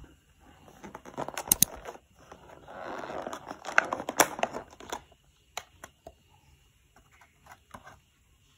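Thin clear plastic takeaway clamshell box being handled and opened: two spells of crinkling and crackling plastic with a few sharp clicks, then some lighter clicks and taps as the lid is set aside.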